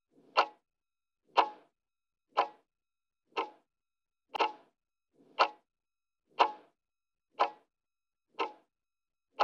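Clock ticking steadily, one sharp tick a second, each with a short ring after it.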